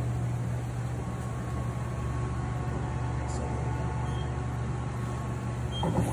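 Steady low hum with a light hiss from a TOSH Logica 03 pad printer standing by, a faint high tone running under it, and a single click near the end.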